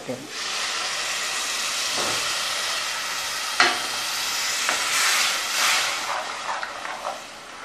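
Tamarind water poured onto hot fried onions, garlic and spice paste in a pressure cooker, setting off a loud, steady hiss of sizzling that dies down over the last couple of seconds. A few short scrapes and knocks of a steel ladle stirring the pot.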